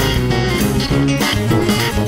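Background music with a steady beat and several instruments playing together.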